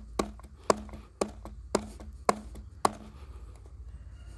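Ozark Trail folding knife's D2 blade chopping into a piece of wood, six sharp chops about two a second, stopping about three seconds in. The wood is harder here, near a knot.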